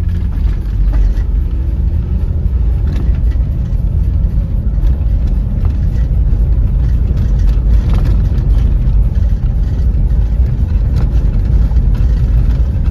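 Moving vehicle driving along a road: a steady, loud low rumble of engine and road noise.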